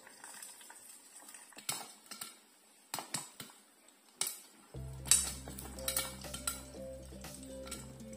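Popcorn kernels popping one by one inside a covered aluminium stovetop popcorn pot, a dozen or so scattered sharp pops against the metal: the early stage of popping on high heat. Background music comes in about halfway through.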